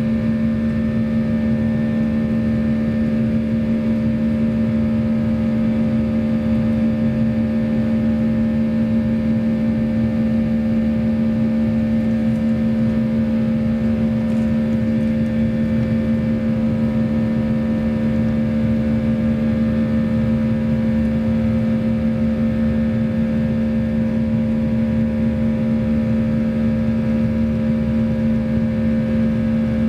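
Cabin noise inside a Boeing 737-800 in its climb: the steady drone of its CFM56-7B turbofan engines over rushing air, with a strong low hum and a fainter higher tone that hold unchanged.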